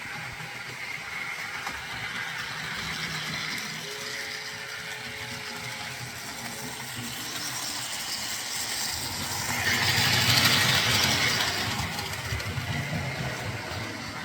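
Model steam locomotive running along the layout's track, its small electric motor and wheels making a steady mechanical whirring and rattling that grows louder for a couple of seconds about ten seconds in, then eases back.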